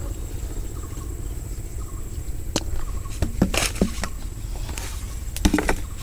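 A plastic jar handled among leaves: a few short clicks and rustles, over a steady low rumble.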